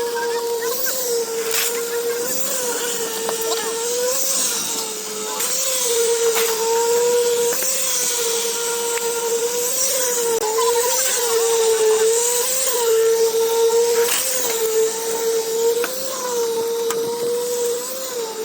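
A machine motor running steadily with a hum whose pitch dips briefly about every one to two seconds, as if loaded, with scraping and knocks over it.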